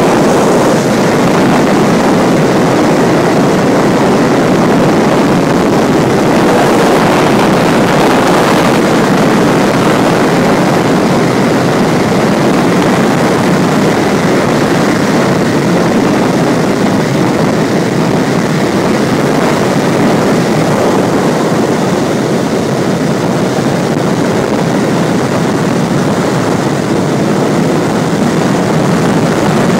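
Steady rush of air around a DG1000 two-seat glider in flight, heard from inside the cockpit.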